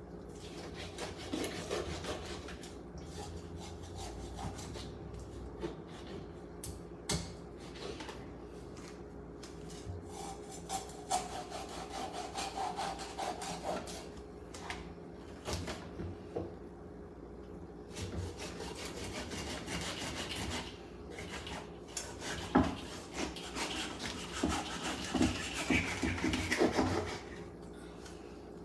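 A knife scraping scales off a tilapia: irregular rasping strokes with sharp knocks in between, over a steady low hum.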